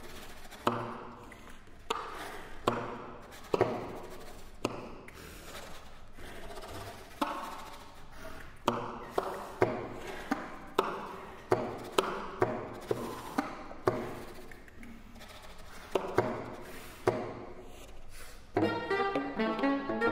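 Saxophone quartet playing contemporary chamber music in short, sharp accented attacks at irregular intervals, each dying away. Near the end a rapid flurry of repeated notes begins.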